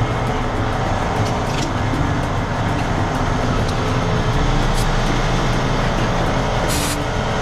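Semi truck's diesel engine idling steadily with a low rumble while a tire is aired up, with a short sharp hiss of air near the end.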